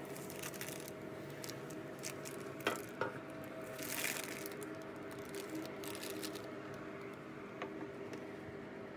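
Baking paper crinkling and rustling as a proofed bread dough resting on it is handled and set onto a metal baking tray, with small clicks and a louder rustle about four seconds in. A steady low hum runs underneath.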